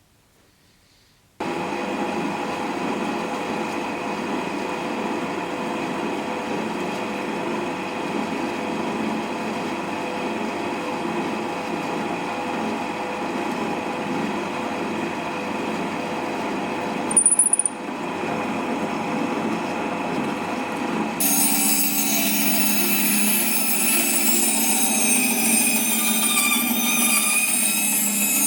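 A power tool running steadily and working the material. It starts suddenly about a second and a half in, and its sound turns brighter and higher about two-thirds of the way through.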